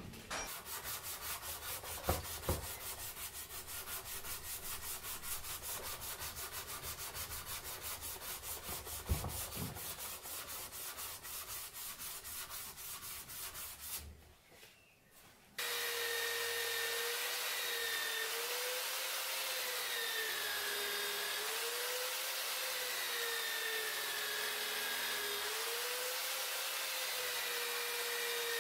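Knife handle's wooden scales sanded by hand with an abrasive strip pulled back and forth, an even rubbing rhythm of several strokes a second. After a brief pause about halfway through, a bench grinder with a non-woven abrasive wheel runs steadily as the steel blade is pressed against it, its motor whine wavering up and down in pitch.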